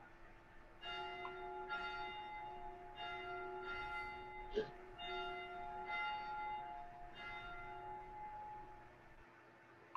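A bell struck about seven times, roughly once a second, each stroke ringing on into the next and the sound dying away near the end, rung to open worship. A sharp click about halfway through.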